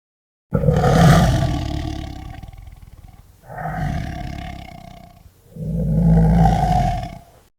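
A large animal giving three long, deep calls, each about two seconds and fading out at its end.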